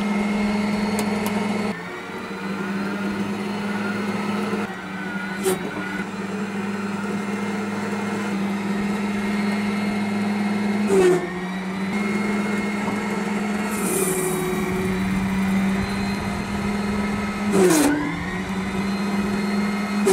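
Electric micro loader running under load: a steady electric motor hum with a whine above it, cutting out and changing pitch several times as the machine drives and works its boom. A few brief clunks come in between.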